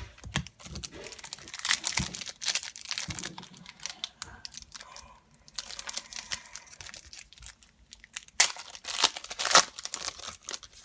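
A foil trading-card pack wrapper being torn open and crinkled, in two spells of crackling, the second one, near the end, the loudest.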